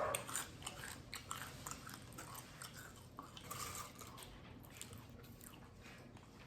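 Chewing and mouth sounds of eating a buffalo chicken quesadilla: soft wet smacks and small crunches, busiest in the first few seconds and quieter near the end.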